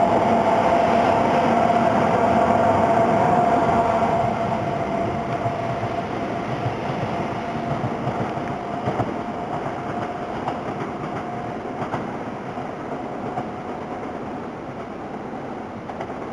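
Coupled E5 and E3 series Shinkansen trainsets running past and moving away, with a steady high whine over the rail noise. Loud for the first few seconds, then fading slowly as the train recedes.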